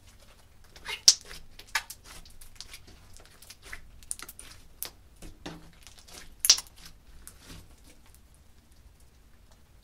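Hands squeezing and kneading a large lump of clear slime, giving irregular sticky clicks and pops. The loudest pops come about a second in and again about six and a half seconds in.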